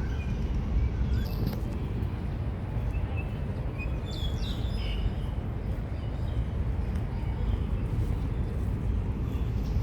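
A small bird chirps a few quick high notes about four seconds in, over a steady low rumble of outdoor noise.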